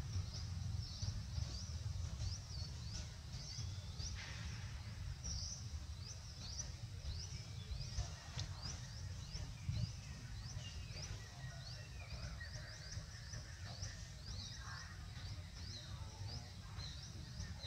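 Outdoor ambience of wildlife chirping: short, high chirps repeating two or three times a second over a steady low rumble.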